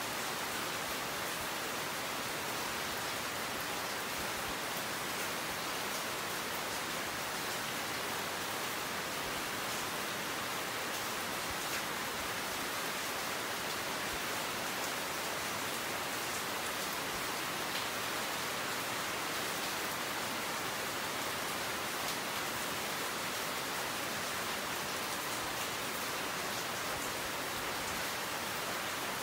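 Steady rain falling, an even hiss that neither builds nor stops.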